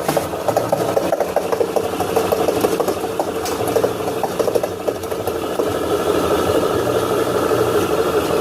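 Front-load washing machine drum turning with a continuous rasping grind and dense rattling clicks from its worn drum bearing.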